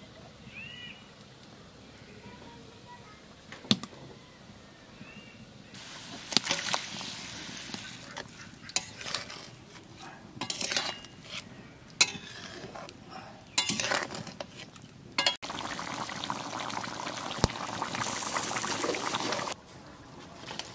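Fish curry sizzling and bubbling in a metal kadhai while a metal spatula stirs it, with sharp clinks and scrapes of the spatula against the pan. The hiss steadies in the second half and cuts off near the end. Faint bird chirps in the quiet opening seconds.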